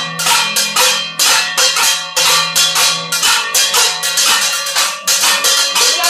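Music with a fast, steady beat, mixed with the rattling clang of stainless steel pots and pans struck with metal utensils, several strikes a second, as noisemaking at midnight on New Year's Eve.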